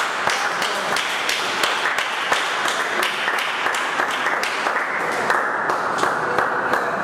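Congregation clapping and cheering: many sharp hand claps over a steady din of crowd noise.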